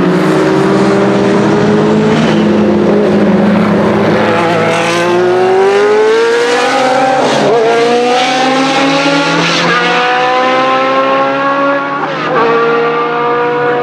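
Ford Cosworth DFY V8 of a 1983 Williams FW08C Formula One car accelerating hard, its pitch climbing through the gears with upshifts about seven and a half, nine and a half and twelve seconds in. A vintage GT car's engine runs with it.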